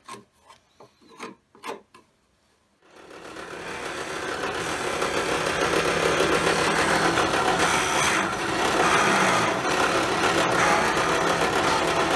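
A few light taps, then, about three seconds in, a continuous rasping noise of a tool working wood starts, builds up over a second or two and runs steadily.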